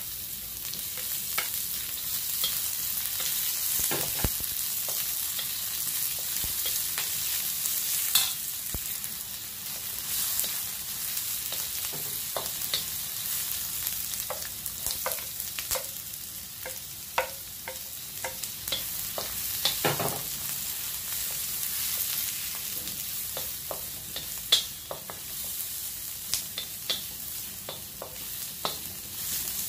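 Ginger, onion and garlic sizzling in hot oil in a metal wok, a steady hiss with scattered clicks and scrapes as a wooden spatula pushes them in and stirs them.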